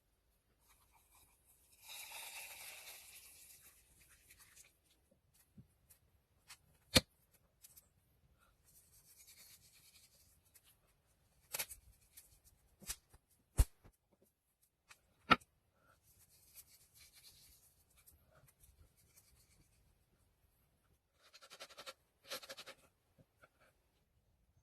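Handling noises: rustling and scraping in short spells, with about five sharp knocks in the middle.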